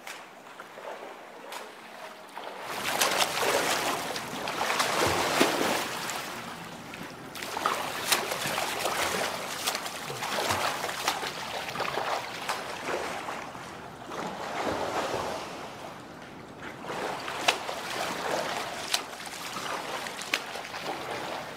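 Splashing water from a swimmer's front-crawl arm strokes and kicks in a pool, coming in uneven surges with sharp slaps, starting about three seconds in.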